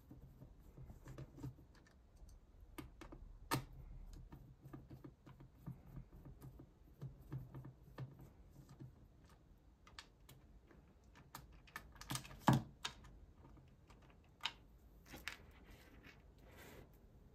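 Irregular small clicks, taps and rustles of hands removing tiny screws and a camera module from an opened plastic tablet, with a few sharper knocks, the loudest about twelve seconds in.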